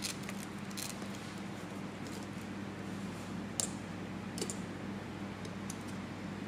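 A few light clicks and taps from handling the small parts of an opened smartphone, as its taped metal motherboard shield is lifted off and set down, over a steady low hum. The sharpest click comes about three and a half seconds in.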